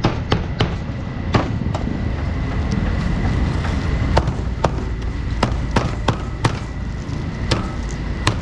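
A meat cleaver chopping roast duck on a cutting board: about a dozen sharp, irregular knocks as the blade cuts through the bird onto the board. Steady market street noise runs underneath.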